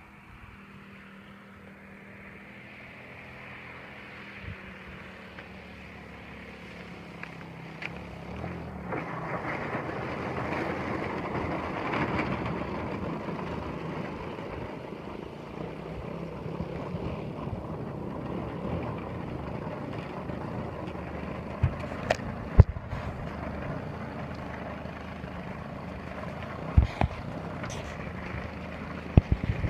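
Gasoline engine of a 111-inch Aeroplus Edge RC aerobatic plane (GP 123 with rear-exit canister mufflers) running at low throttle. It grows louder up to about twelve seconds in as the plane comes in to land, then runs steadily on the ground. A few sharp clicks come near the end.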